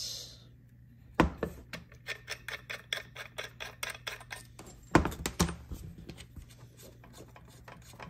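Threaded metal UHF (PL-259) coax connectors being unscrewed and pulled off an SWR meter and a radio: a run of quick metallic clicks and rattles, with louder knocks about a second in and about five seconds in.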